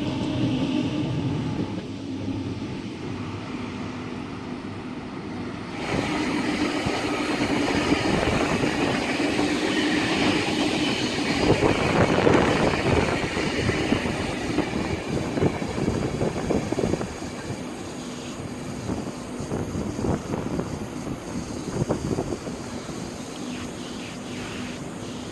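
A train running past: a steady hum at first, then louder wheel-on-rail rumble that peaks about twelve seconds in and eases off afterwards.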